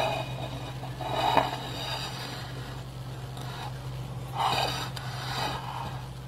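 A few short scrapes of a spatula against a cake on a plate: one at the start, one about a second in, and two in the second half, over a steady low hum.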